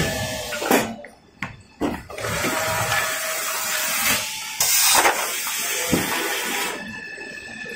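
Kitchen towel paper rewinding and converting machinery running: a steady rushing noise, with sudden drops and jumps in level, including a brief quiet dip about a second in and a louder hiss near the middle.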